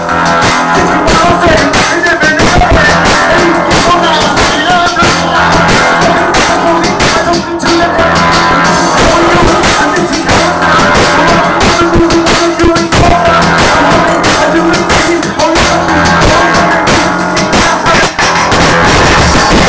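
Loud music with a steady beat, played from DJ decks through a PA speaker in a small room.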